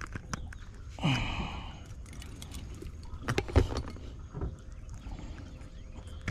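Knocks and light clatter on a fibreglass skiff, the loudest about three and a half seconds in, over wind rumbling on the microphone, with a short rushing sound about a second in.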